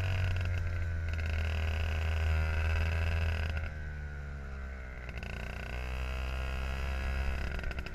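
IAME two-stroke kart engine running at low revs as the kart rolls slowly, its note bending up and down; it drops and quietens about three and a half seconds in, then picks up a little again.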